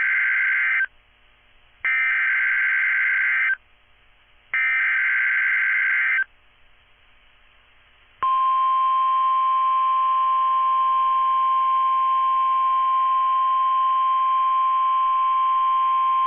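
NOAA Weather Radio Emergency Alert System signal: three bursts of SAME digital header data tones, each under two seconds and about a second apart, then the steady 1050 Hz warning alarm tone held for about nine seconds. This sequence marks the start of a new alert, here a severe thunderstorm watch.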